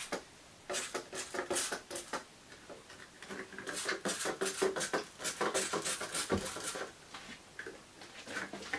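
Irregular rustling and light clicking of close handling noise, in short clusters about a second in and again from about three and a half to six seconds in.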